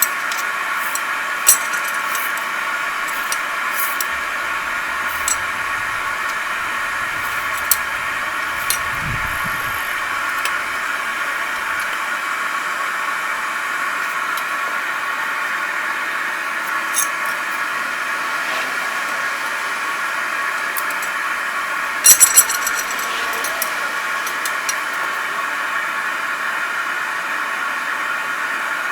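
A forge running with a steady rushing noise while a large sword blade is heated for hardening. Scattered sharp clicks sound over it, with a quick cluster of them about 22 seconds in.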